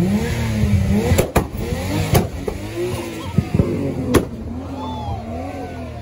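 Nissan 300ZX turbocharged V6 being revved repeatedly in short blips, its turbo fluttering as the throttle snaps shut. Several sharp cracks stand out, loudest about one, two and four seconds in.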